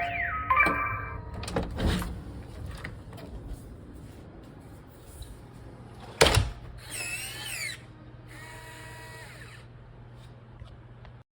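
Wyze Palm Lock giving electronic chime tones and clicks, then a sharp knock about six seconds in followed by its motor whirring for a few seconds as it drives the deadbolt.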